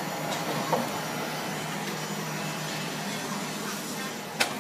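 Steady hum and hiss of a running machine, with a sharp click near the end.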